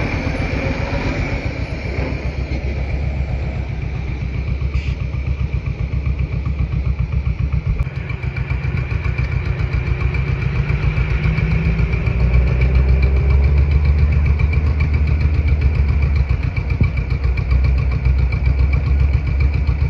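Diesel semi-truck engine idling at close range, with a steady run of low exhaust pulses and a faint steady high whine alongside. It gets louder about twelve seconds in.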